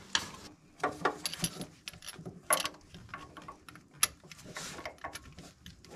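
Scattered sharp clicks and light metallic clinks of gloved hands handling engine parts and tools, irregular, with the loudest about two and a half and four seconds in.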